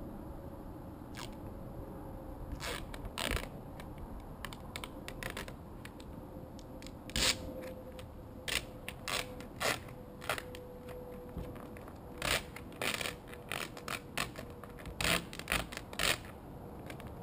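A squeegee scraping over a vinyl decal as it is pressed onto the trailer's flat side: a series of short scraping strokes, about a dozen, spaced irregularly, some much louder than others.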